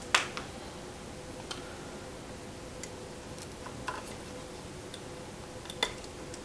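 Scattered light clicks and taps as fingers handle small parts on a 1:14 scale RC track loader model, the sharpest click just after the start and another about six seconds in, over a faint steady hum.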